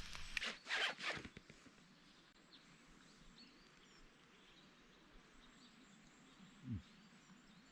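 A short rasping noise in the first second or so, then quiet outdoor background with faint bird chirps and a brief low thud near the end.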